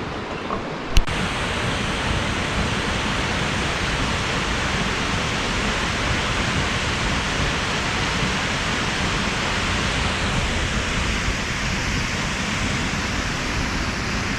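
Steady rush of falling water from a waterfall, with one brief click about a second in.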